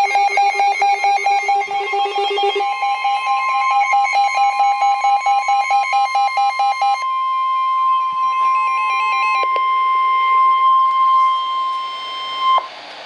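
Rapid electronic alarm beeping, joined about three seconds in by the steady 1050 Hz NOAA Weather Radio warning alarm tone, the signal that a new warning broadcast is starting. The beeping stops about seven seconds in; the alarm tone holds alone until it cuts off abruptly near the end, leaving radio hiss.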